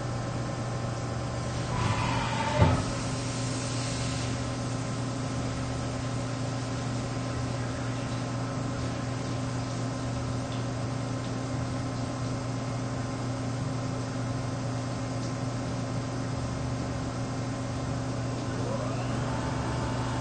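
CNC vertical machining center running as a long drill bores into a billet aluminum Ford big-block engine block: a steady machine hum with several held tones. About two seconds in, a tone falls in pitch and ends in a sharp knock; near the end, a tone rises in pitch.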